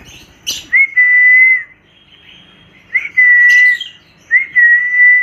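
Three long whistled notes held at one steady high pitch, each opening with a short upward slide, with a brief sharp chirp just before the first.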